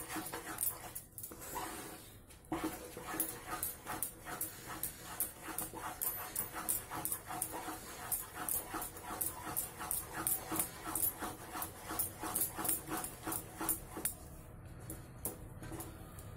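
Wooden spatula stirring thick, reducing moong dal halwa mixture in a metal pan, scraping the pan in quick regular strokes, about three to four a second. The strokes die away a couple of seconds before the end.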